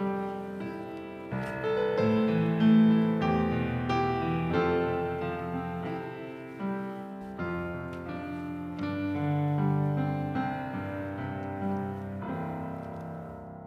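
Solo piano playing slow chords, the notes struck and left to ring, growing softer toward the end.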